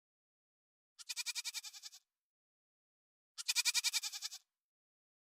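Goat bleating twice, each bleat a wavering, quavering call about a second long.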